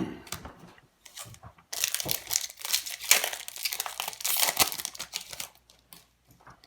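Foil wrapper of a Magic: The Gathering booster pack crinkling and tearing, a dense run of crackling from about two seconds in until about five and a half seconds.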